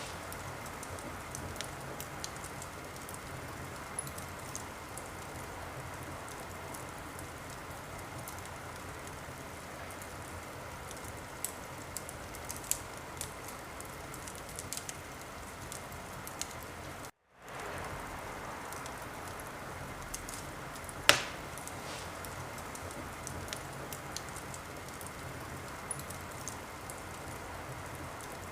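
Wood fire crackling in a fireplace: a steady hiss with scattered small crackles and one loud pop about three-quarters of the way through. The sound cuts out for a split second a little past halfway.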